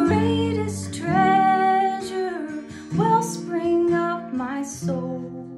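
A woman singing a hymn, accompanied by a strummed acoustic guitar.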